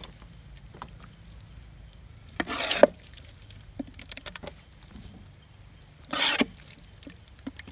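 Two short, wet scraping slops, about half a second each, one a few seconds in and one near the end, as thick cooked tapioca-and-meat biryani is scooped out of the cooking pot and tipped onto a banana leaf.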